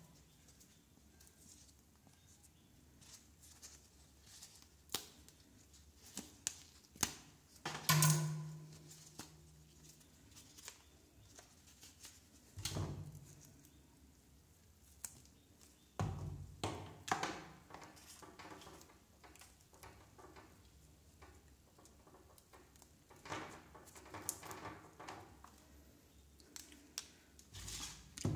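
Handling of headphone packaging: scattered clicks, taps and short crinkling as a cardboard insert and small plastic bags are handled and set down on a wooden table.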